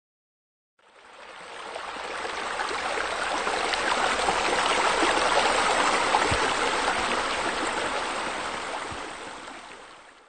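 Water pouring from wall spouts and splashing into a swimming pool: a steady splashing that swells in over the first few seconds, is loudest around the middle and fades away near the end.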